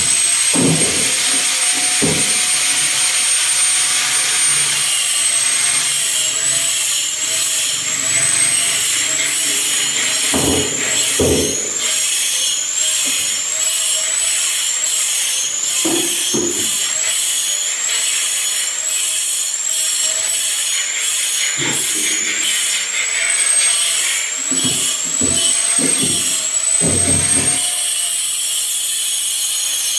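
Electric power tool motor running at high speed with a high whine whose pitch dips again and again as the bit is pushed into the wood and recovers between cuts. Scattered low knocks of wood being handled come through under it.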